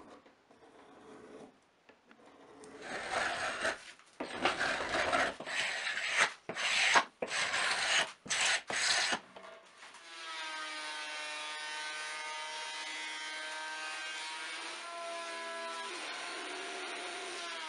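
Wood being rubbed and scraped in a run of irregular strokes, then a steady hum that shifts pitch a few times.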